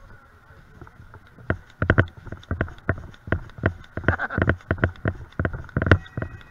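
Footsteps crunching through dry fallen leaves at a brisk pace, about three steps a second, starting about a second and a half in.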